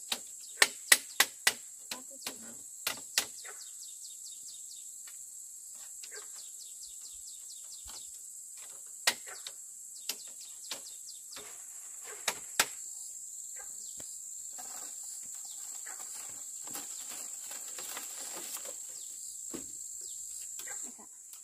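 Sharp knocks, likely from hand-tool work on the barn: a quick run of about eight in the first three seconds, then scattered single and paired knocks. Under them runs a steady high-pitched drone of crickets or other insects.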